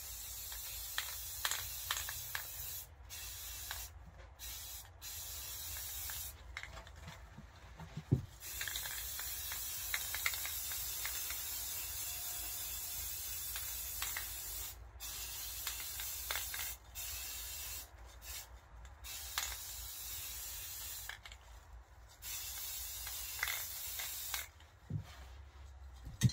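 Aerosol can of Rust-Oleum brown camouflage spray paint hissing in a series of short bursts and one longer spray of about six seconds in the middle, as a duck decoy is coated all over.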